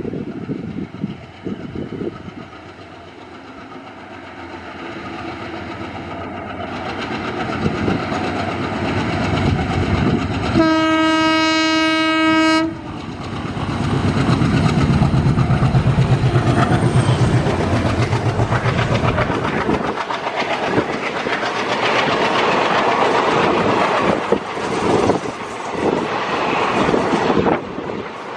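Indian Railways diesel locomotive hauling a passenger train: its rumble grows as it approaches, it sounds one steady horn blast of about two seconds near the middle, and its engine is loudest as it passes close. Passenger coaches then roll by with a rhythmic clickety-clack of wheels over rail joints.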